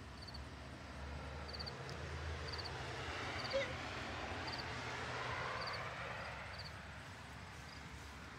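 A cricket chirping steadily, short pulsed trills about once a second, while a passing car's noise swells and fades in the middle.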